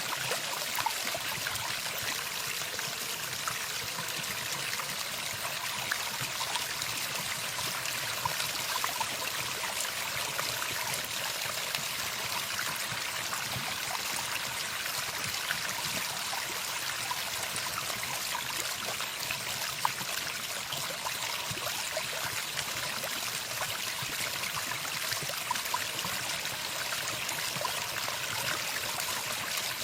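Running water: a steady stream trickling and babbling, with many small splashes.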